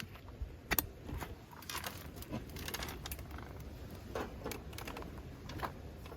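Irregular light clicks and clatters of small hard objects being handled, over a low steady background rumble.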